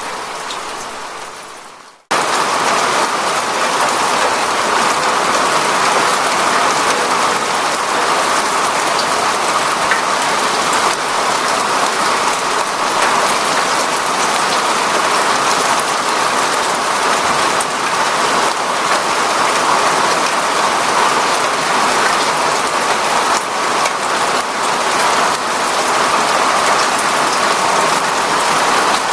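Steady rain falling, a dense hiss of many drops hitting a surface. About two seconds in, the rain fades out and cuts off for an instant, then starts again abruptly and a little louder, as one recording gives way to the next.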